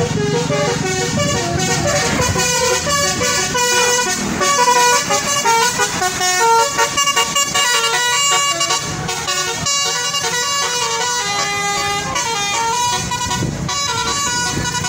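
Bus telolet horns (Basuri multi-tone musical horns) playing quick melodic runs of short toots at changing pitches, over the low drone of bus engines.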